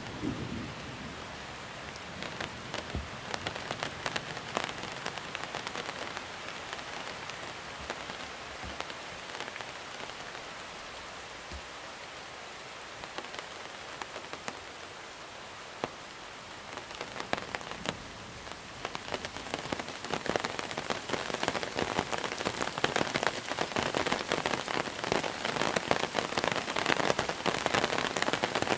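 Monsoon rain falling steadily, with many individual drops ticking on a surface. The rain grows heavier about two-thirds of the way through.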